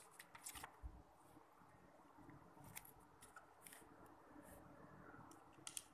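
Near silence: room tone with a few faint, scattered clicks, a small cluster about half a second in and a quick pair near the end.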